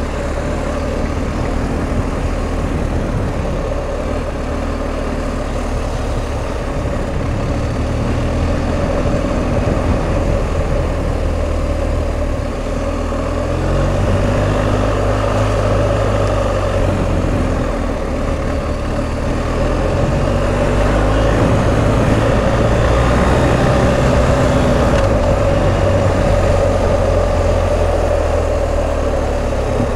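BMW R1250 GS Adventure's 1254 cc boxer-twin engine running as the bike is ridden. The engine note rises and falls several times with the throttle.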